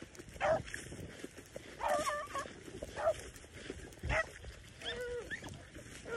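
Beagles baying on a rabbit's trail while running it: short, bending yelps about once a second, several in a row.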